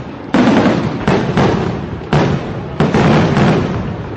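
Aerial firework shells bursting in quick succession: about six loud bangs, each trailing off in a rumble, the last about three and a half seconds in.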